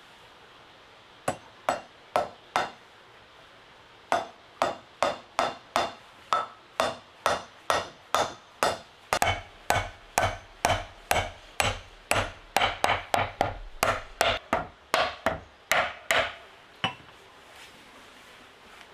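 Repeated sharp strikes of a tool on wood, about two a second, quickening toward the middle with a brief pause near the start.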